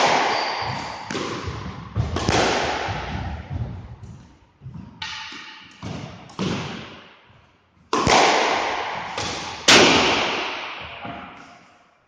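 Squash ball struck by rackets and smacking off the court walls in an irregular rally, about ten sharp hits, each ringing on in a long echo around the court.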